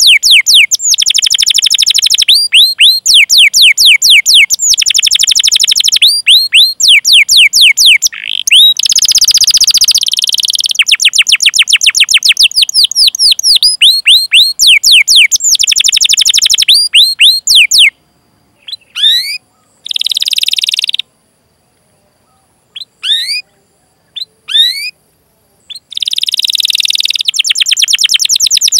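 Domestic canary singing: long, rapid trills of quickly repeated falling chirps, the 'cuit cuit' rolling song used to train young canaries. Roughly two-thirds of the way through the song breaks off into several seconds of silence with only a few short chirp phrases, then the fast trill resumes near the end.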